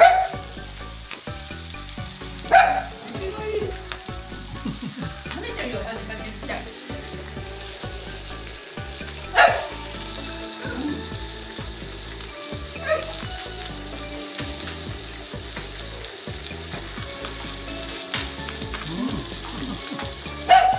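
Chicken skin frying in a little oil in a pan: a steady sizzle, crisping the skin. A few short, sharp knocks stand out over it, near the start, about two and a half, nine and a half and thirteen seconds in, and just before the end.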